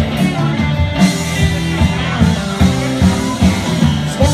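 Live rock band playing: electric guitar, acoustic guitar, bass and drums, with a steady drum beat.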